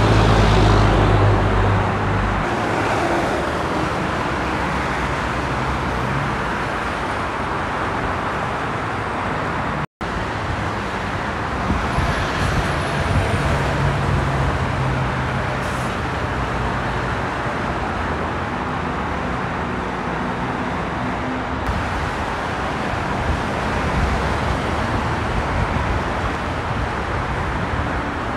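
Steady freeway traffic noise from many cars and trucks passing, with the low drone of a heavy truck's engine strongest in the first couple of seconds and again from about twelve to sixteen seconds in. The sound cuts out for an instant about ten seconds in.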